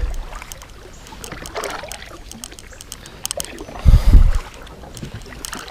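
Small clicks and light water sounds around a kayak as a fish is handled, with one loud low thump on the microphone about four seconds in.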